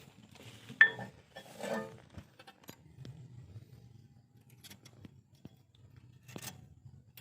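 Small steel brake pad clips clinking and scraping as they are fitted onto a disc brake caliper bracket, with a sharp metallic ping about a second in and scattered light clicks after.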